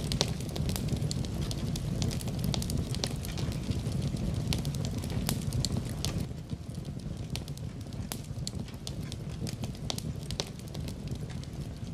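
Wood fire crackling in a fireplace: frequent sharp pops and snaps over a low steady rumble, which eases about halfway through.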